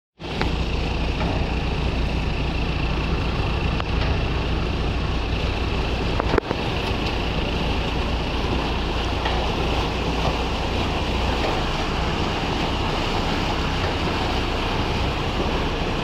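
A motor boat's engine running steadily, heard from on board, with wind on the microphone and water washing past the hull. There is one sharp knock about six seconds in.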